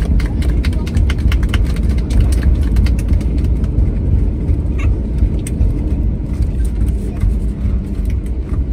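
Cabin noise of an Airbus A321neo rolling on the ground after landing: a loud, steady low rumble with many clicks and rattles of cabin fittings, which thin out after about four seconds.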